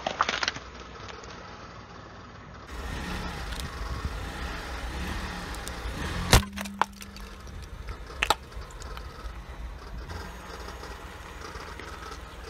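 Car tyre rolling slowly over objects on pavement, with a steady low engine and tyre rumble. There are a few crunching clicks near the start, and a single sharp crack about six seconds in as the tyre presses down on a husked coconut. A smaller crack follows about two seconds later.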